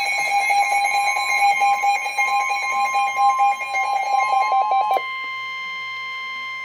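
Emergency Alert System alert tones: a rapid, pulsing electronic beep pattern that about five seconds in gives way to one steady, unbroken alert tone.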